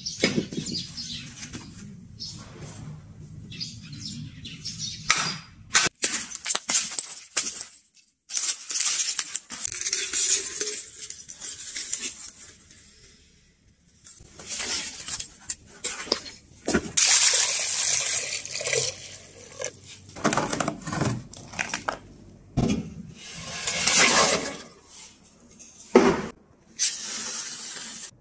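Intermittent rustling and scraping handling noises in irregular bursts, with scattered sharp clicks.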